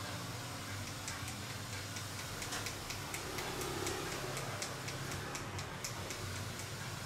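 A run of light, sharp clicks or ticks, about three a second, starting about a second in, over a low steady hum.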